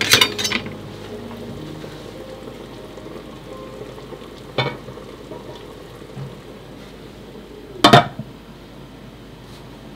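Chestnuts in syrup simmering in a stainless pot on a gas burner, a steady bubbling hiss. A few quick clinks of bottle and spoon come at the start and a single tap about four and a half seconds in, and the metal lid is set down on the pot with a loud clank near eight seconds.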